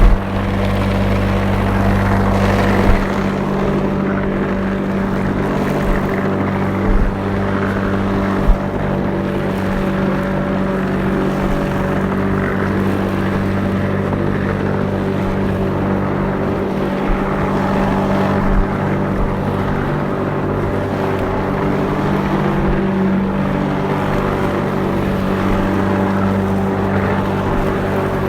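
Lawnmower running steadily while mowing grass, with a few short knocks in the first nine seconds.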